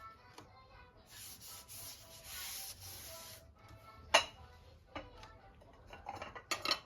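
Kitchen work: a scraping, rubbing noise in quick strokes for about two seconds, then a sharp clack about four seconds in and a few lighter clicks near the end.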